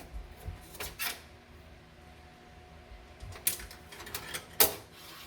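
A few sharp metallic clicks and rattles from a wire coat hanger being worked against sheet metal inside a car body. The loudest comes near the end, over a faint steady hum.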